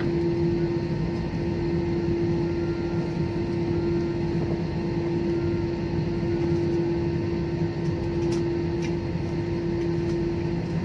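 Jet airliner cabin noise over the wing as the plane rolls along the runway after landing: a steady engine drone with a constant hum and low rumble.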